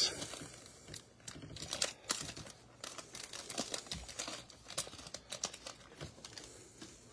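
Foil wrapper of a Panini Prizm basketball card pack being torn open and crinkled in gloved hands: many quick, faint irregular crackles and tearing sounds.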